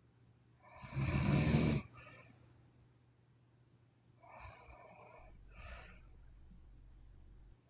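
A sleeping woman snoring: one loud, rough snore about a second in, then two softer breaths a few seconds later.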